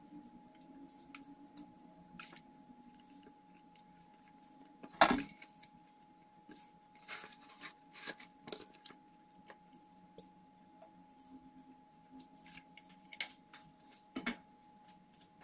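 Kitchen utensils and dishes clinking and knocking while marinated fish pieces are handled in a plastic bowl with a spatula, with one loud knock about five seconds in. A faint steady hum runs underneath.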